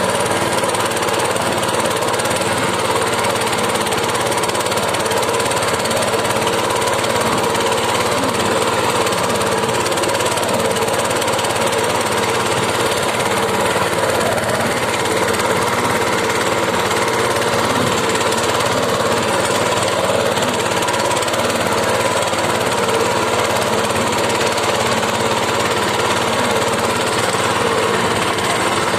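Small fishing boat's engine running steadily, a loud unbroken chugging drone.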